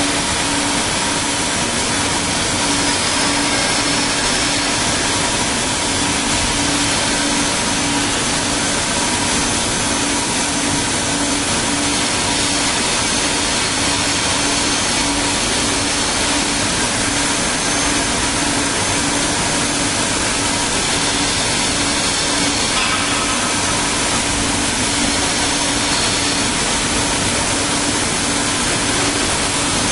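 Cutting torch of a Kaltenbach WBZ 1500 plate drilling and profiling machine cutting steel plate: a loud, steady hiss with a pulsing hum underneath.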